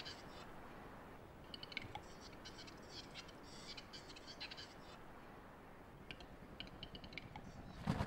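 Male capercaillie's courtship song: runs of quick dry clicks and rasping, scissor-like whetting phrases, coming three times over a faint hiss. A short thump near the end.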